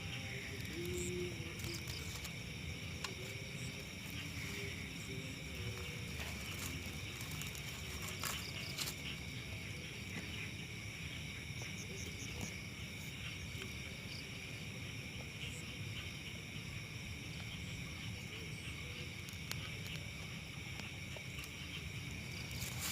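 Night insects chirring steadily in several high pitches over a continuous low rumble.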